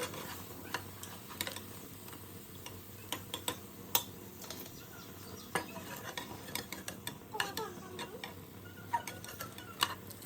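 Pakoras frying in hot oil in a karahi: a steady sizzle, with a metal spoon clicking and scraping against the pan many times as they are stirred and turned.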